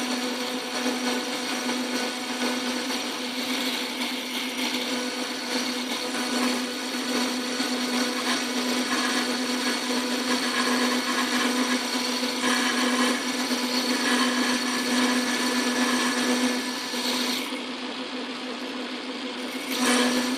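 Montgomery Wards Logan metal lathe running with a steady motor hum while the tool bit cuts the old gear. Near the end the higher hiss drops away for about two seconds, then comes back.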